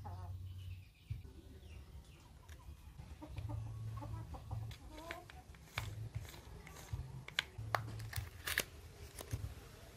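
Scattered sharp clicks and taps of metal parts on an opened angle grinder being handled, over a low hum that comes and goes.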